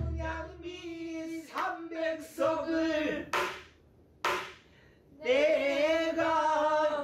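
Pansori singing: voices hold long notes with a wavering shake, broken by short breathy sounds, and drop out briefly a little after four seconds before a louder sung phrase comes in. The low stroke of a buk barrel drum fades away at the very start.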